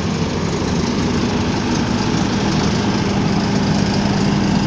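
Trailer-mounted diesel generator sets running steadily: a loud, constant engine drone with a steady low hum.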